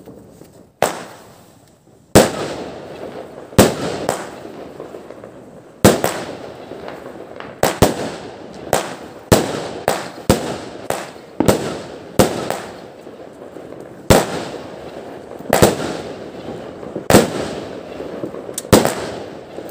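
A 16-shot 20 mm consumer fireworks cake firing its shots one after another at uneven intervals, about one a second, with some shots close together in pairs. Each shot is a sharp bang that trails off.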